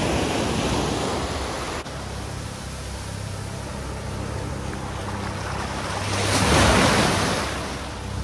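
Small waves breaking and washing up over sand at the water's edge, with a louder surge of rushing water about six to seven seconds in.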